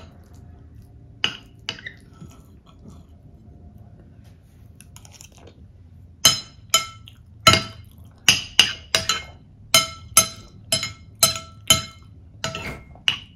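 Metal spoon clinking against a ceramic plate while scooping up food: two taps early on, then, from about halfway, a quick run of ringing clinks, about two a second.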